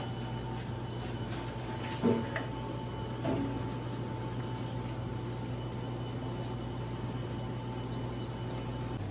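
Two short wet splashes and squelches as charred roasted eggplants are dipped and their skins stripped off in a pan of water, the first about two seconds in and the second just after three seconds. A steady machine hum with a faint high whine runs underneath.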